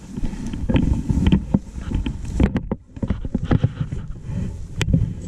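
Wind buffeting and handling noise on a wearable camera's microphone: an irregular low rumble with scattered knocks and clicks, with a short lull about halfway through.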